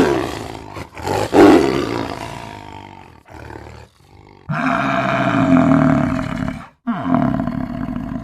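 A string of wild animal roars, several separate calls following one another with abrupt breaks, the loudest a little over a second in and a longer held call past the middle.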